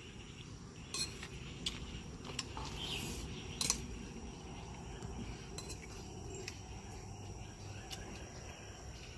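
A metal spoon clinking and scraping lightly against a plate of rice while someone eats, several separate clinks spread through, the sharpest a little over a third of the way in. A steady high insect drone runs underneath.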